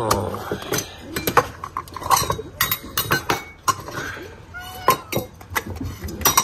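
Domestic cats meowing, a couple of short calls, among repeated clinks and knocks of food dishes being handled at feeding time.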